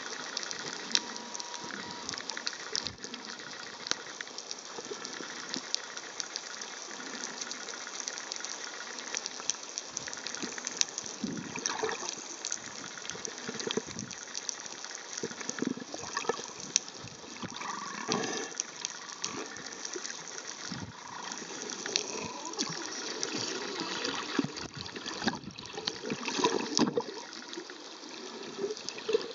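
Underwater sound picked up by a camera submerged in the sea: a steady watery hiss with constant fine crackling, and louder bubbly rushes near the end as a snorkeler's fins stir the water.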